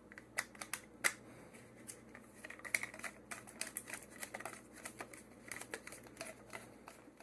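Scattered light clicks and taps of plastic drain pipe and fittings being handled and fitted together.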